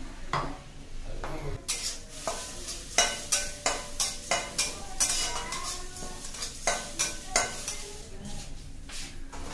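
A steel spatula stirring grated coconut around a metal kadai. From about two seconds in come quick, repeated scrapes and knocks of the spatula against the pan, about three a second.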